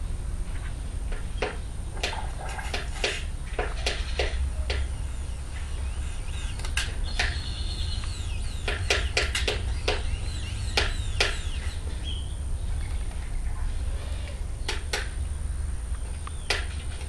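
A European starling pecking at a dog's food bowl: irregular sharp taps in quick clusters, with a pause of a couple of seconds past the middle.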